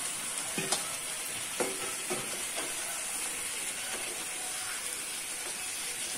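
Chicken pieces and mint-coriander paste sizzling in a pan on a gas stove as they are stirred with a spatula, with a few sharp knocks of the utensils against the pan in the first few seconds over a steady sizzle.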